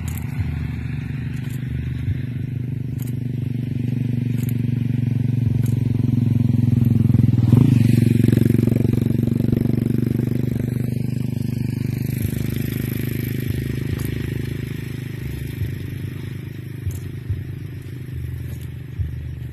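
A motor vehicle engine running, swelling to its loudest about eight seconds in and then slowly fading. Over it, a hoe scrapes and chops into soil, with light strikes about every second and a half.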